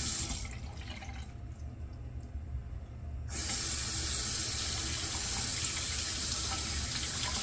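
Water running from a tap into a bathroom sink. The stream cuts out shortly after the start and comes back about three seconds later, then runs steadily.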